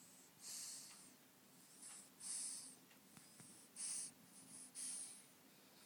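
Faint, hissy snoring breaths of a small sleeper, about six in all, some coming in quick pairs: heavy breathing in sleep.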